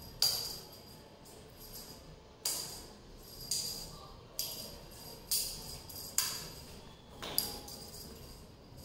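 Small metal jingles shaken or struck in short jingling bursts, about once a second, each ringing briefly and fading.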